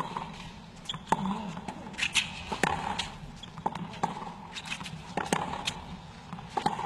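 Tennis ball bouncing on the hard court between points, a series of sharp, unevenly spaced taps, over a low murmur from the stadium crowd.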